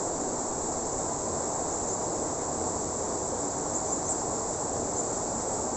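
Insects keep up a steady high-pitched drone over a steady low rushing noise.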